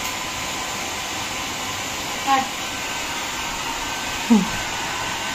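Hair dryer blowing steadily while a freshly bathed dog is dried. Two short voice sounds come over it, about two and four seconds in.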